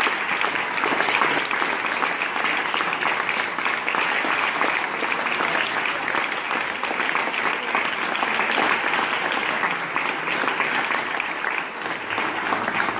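Audience applauding: a steady, dense patter of many hands clapping that thins a little near the end.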